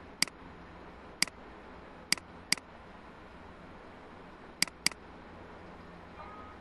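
Computer mouse button clicking: four single clicks in the first three seconds, then a quick double-click a little before five seconds in.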